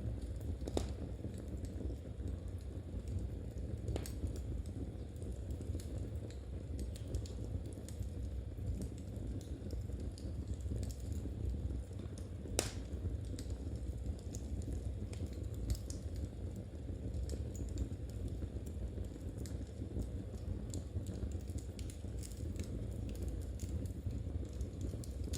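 Knitting needles clicking softly and irregularly as stitches are worked, mixed with the crackle and occasional sharper pops of a wood fire, over a low steady rumble.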